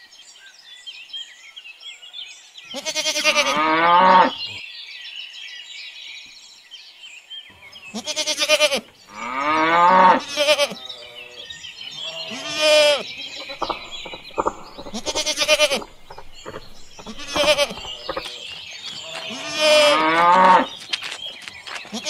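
A series of farm-animal calls, mooing and bleating, a few seconds apart, over birds chirping.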